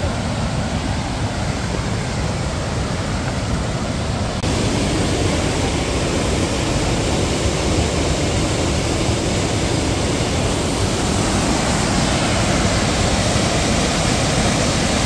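Rushing water of a waterfall, a steady noisy rush that jumps louder about four seconds in.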